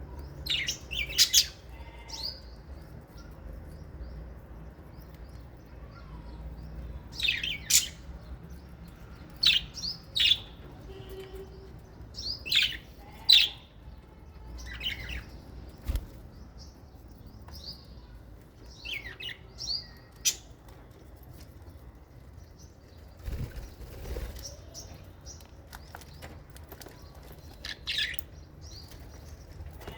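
Small parrots (lovebirds and budgerigars) giving short, sharp chirps and squawks every second or two, often two or three in quick succession.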